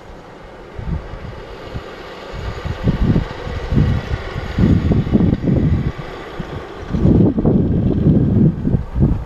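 Wind buffeting the camera's microphone in uneven gusts: a low rumble that swells and falls, strongest from about seven seconds in. A faint steady hiss above it fades away at about the same point.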